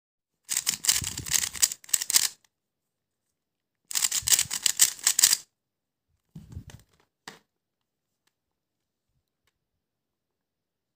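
3x3 plastic speed cube being turned quickly by hand: two bursts of rapid clicking layer turns, the first starting about half a second in and the second from about four to five and a half seconds, then a few softer turns around seven seconds.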